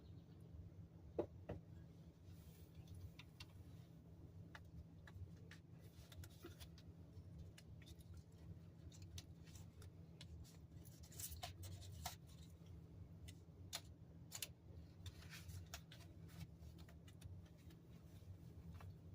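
Faint, steady low drone from a distant grocery store exhaust vent, with scattered faint clicks and ticks over it. The sharpest click comes about a second in.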